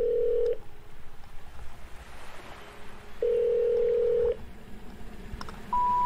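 Sparse electronic background music: a long held low note, then another about three seconds later, and three short notes stepping upward near the end, over a faint hiss.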